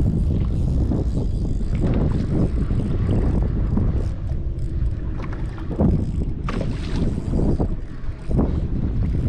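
Wind buffeting the microphone in a steady low rumble, with irregular slaps and splashes of water against a kayak.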